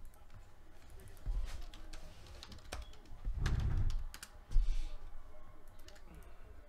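Computer keyboard typing: scattered key presses and clicks, with a few dull thumps, the loudest about four and a half seconds in.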